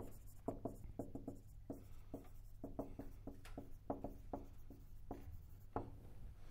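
Marker writing on a whiteboard: a run of short, faint strokes and squeaks as the pen moves across the board.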